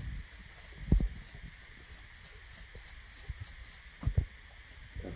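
Brass brush scrubbing carbon fouling off the feed ramp of a Springfield XD9 pistol's steel barrel: short, even rasping strokes, about four a second, that stop about three and a half seconds in. Low knocks from the barrel and tools being handled come about a second in and again near four seconds.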